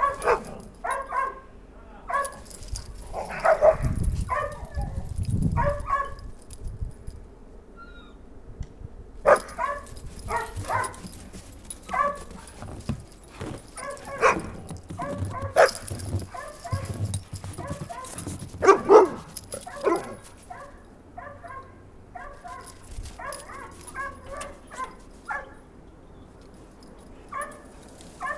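Dogs barking and yipping in play, short sharp barks coming in quick runs with brief pauses between.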